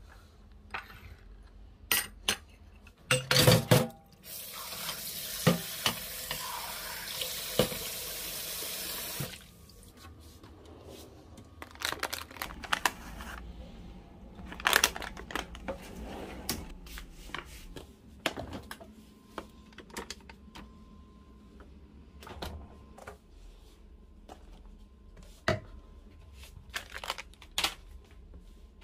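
Household handling sounds: a few sharp knocks of objects being set down, then about five seconds of a kitchen tap running steadily that cuts off suddenly. Scattered light clicks and rustles follow as wet wipes are pulled from their pack and handled on a tabletop.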